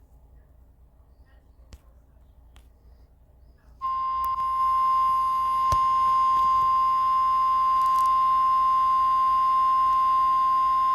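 Emergency weather-alert attention signal: after a few seconds of low hiss, a single steady high-pitched beep begins about four seconds in, holds for roughly seven seconds and cuts off suddenly. It is the NOAA Weather Radio warning alarm tone that announces a severe thunderstorm warning.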